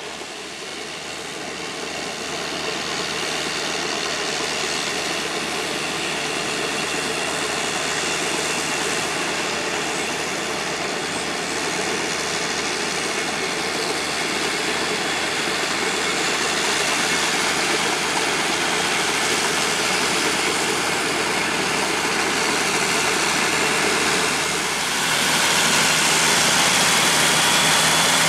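Tracked tractor's diesel engine running steadily under way, growing louder over the first few seconds and louder again about 25 seconds in.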